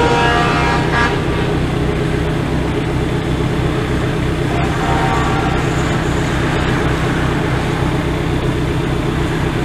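Fire engine horn blasting, a chord of steady tones, for about the first second, and again more faintly about five seconds in. Under it runs the steady low rumble of idling engines.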